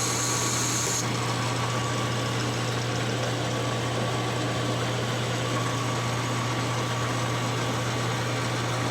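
Metal lathe running steadily as it turns a new riser shaft, a constant machine hum with a faint high tone.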